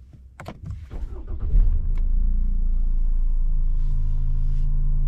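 A few clicks and knocks, then a car engine comes in about a second and a half in and settles into a steady low rumble, as heard inside the car's cabin.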